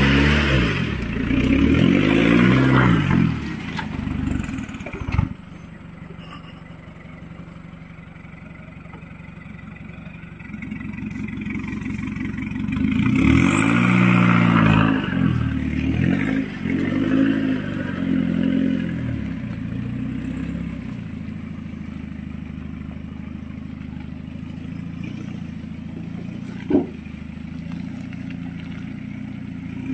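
Isuzu 4x4 pickup laden with oil palm fruit bunches, its engine revving up and down in swells as it works through mud, settling to a steadier, quieter run between. One sharp knock sounds near the end.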